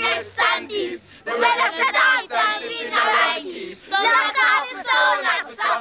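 Young children's high-pitched voices chanting and shouting close up, in quick sing-song phrases with brief pauses.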